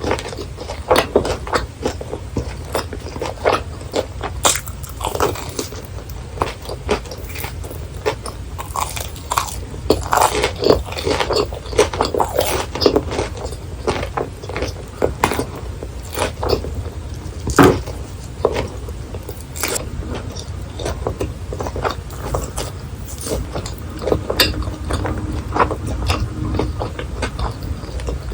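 Close-miked biting and chewing of crisp fried snacks: many sharp, irregular crunches with chewing in between.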